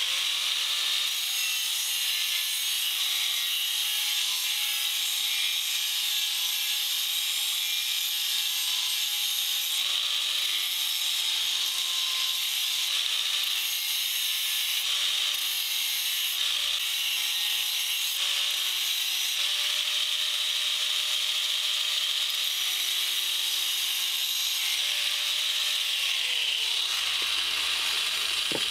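Angle grinder with a 2.5 mm disc grinding the steel edge of an axe held in a vise: a steady, loud hissing rasp of abrasive on metal over the motor's whine. Near the end the grinder is switched off and its whine falls away as it winds down.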